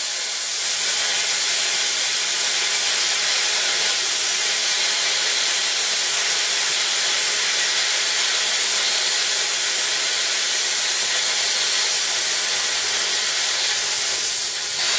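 Plasma cutter's arc and compressed-air jet hissing steadily as the torch cuts 5 mm steel plate at a low 18-amp setting. At this setting it almost, but not quite, cuts through.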